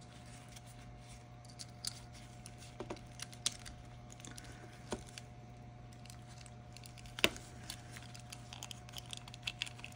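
Scattered small plastic clicks and taps from the parts of a Viofo A119 dashcam's housing being handled and fitted together by gloved hands, with light rustling. The sharpest click comes about seven seconds in, over a steady low hum.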